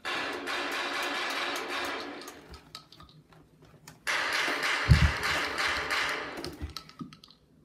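Motorized toy foam-dart blaster whirring as it fires, in two bursts: one for about two and a half seconds, another starting about four seconds in. About five seconds in a heavy thump lands on the carpeted floor.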